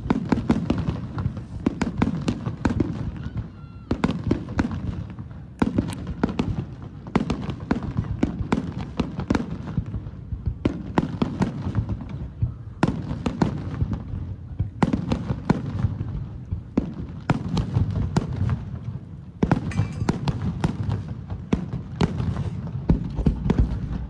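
Aerial fireworks display: a dense barrage of shells bursting, sharp cracks coming one on top of another over a continuous low rumble of booms, with brief lulls every few seconds.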